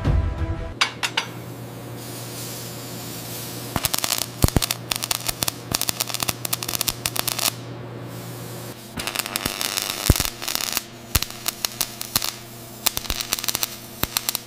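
MIG welding arc crackling and sizzling on heavy steel, with irregular sharp pops over a steady low hum. The crackle drops away for about a second just past the middle, then starts again.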